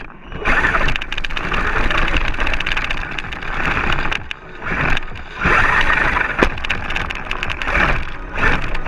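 Axial Yeti RC rock racer driving through grass, heard from a camera on the car: drivetrain noise and tyres running through the grass. The sound surges and drops several times, with brief lulls just after the start and around four and five seconds in.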